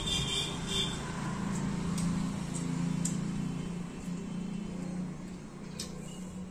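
A low, steady hum that swells about a second in and slowly fades near the end, with a few light clicks.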